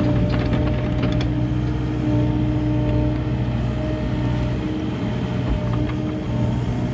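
Kubota KX080 excavator's diesel engine and hydraulics running steadily while it digs, with a few light clicks and knocks about a second in.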